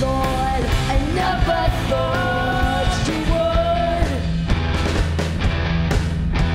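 Live rock band playing: electric guitar, electric bass and a drum kit with cymbals, under a sung vocal line of long held notes through the first half.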